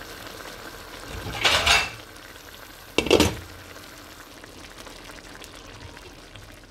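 Pilau rice with chicken tikka simmering in its broth in a pot on the stove, a steady bubbling hiss as the water boils down, with two brief louder noises, one about one and a half seconds in and a second, more abrupt one about three seconds in.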